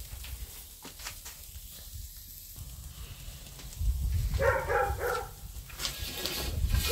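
An animal calling, a short run of pitched cries a little past the middle, over a low rumble.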